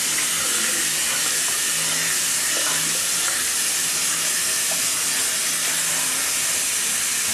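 Kitchen faucet running steadily onto strawberries in a colander in a stainless steel sink: an even, continuous hiss of water.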